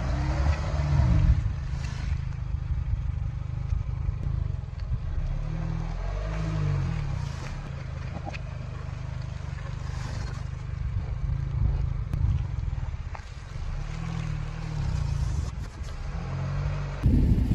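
Car engine running slowly at low revs: a steady low rumble whose pitch drifts up and down now and then as the car creeps on its tyre.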